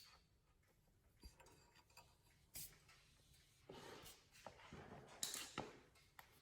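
Near silence with a few faint sharp clicks and a short stretch of light rustling in the second half: hands handling the oil drain hose and tools.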